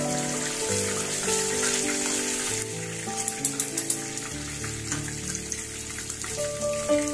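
Hot cooking oil sizzling in a frying pan as fried chicken pieces are lifted out with a wire strainer, with small crackles a few seconds in. Background music plays throughout.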